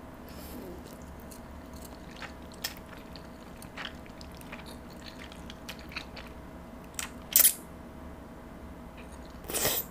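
Soft, held-back chewing and slurping of jjajangmyeon noodles close to a microphone, with scattered small wet mouth clicks and a brief louder slurp about seven seconds in and again near the end.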